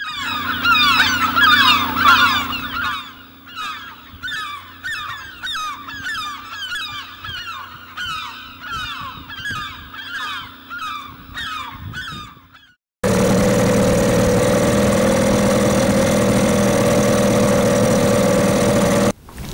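Waterbirds calling with honking calls, a dense chorus at first and then a steady run of repeated calls, over a low steady hum. About thirteen seconds in this cuts to a small outboard motor on a wooden tender running steadily, which stops abruptly near the end.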